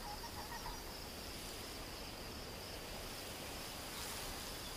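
Faint grassland ambience: a steady high insect trill over a soft hiss, with a few faint short chirps in the first second.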